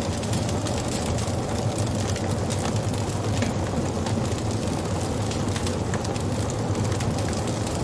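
Wood fire burning with a steady low rumble and many small crackles and pops scattered through it.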